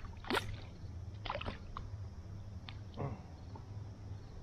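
Water splashing once sharply beside a fishing kayak, followed by a few light knocks and taps, over a steady low hum.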